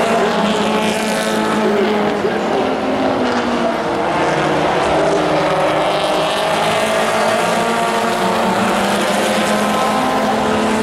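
Engines of a pack of Pro4 race trucks running together on an oval track, a steady, loud blend of several engine notes.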